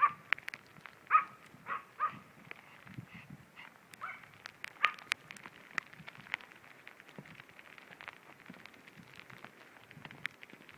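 Dogs barking in short, high yaps, about six of them in the first five seconds, among scattered light ticks and crackles.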